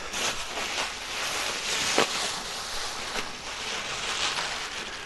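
Wrapping sheet rustling and crinkling as it is pulled off a wooden carving, a continuous crackly rustle with one sharper crackle about two seconds in.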